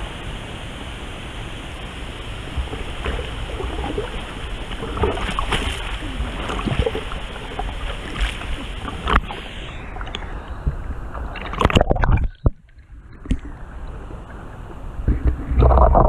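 Water splashing and sloshing close to a hand-held waterproof camera as a swimmer paddles through a pool, over a steady rush of water. Later the sound goes muffled and nearly cuts out about twelve seconds in as the camera sits at the waterline, then a loud low rumble of water and handling comes back near the end.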